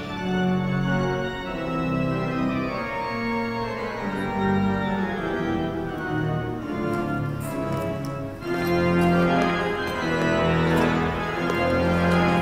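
Pipe organ playing slow, held chords that shift every second or so, growing louder about eight and a half seconds in.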